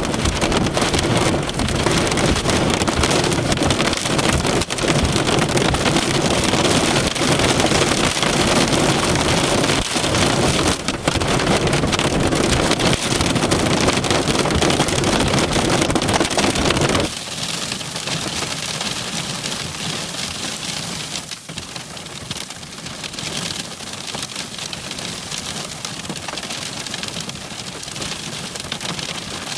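Heavy rain and wind from a supercell thunderstorm, a dense steady hiss with a low rumble. A little over halfway through it drops suddenly to a lighter, thinner rain with much less rumble.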